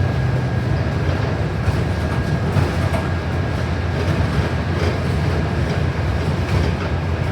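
Cabin noise inside a moving New Flyer XD40 city bus: a steady low rumble of the drivetrain and road, with a faint steady high whine above it.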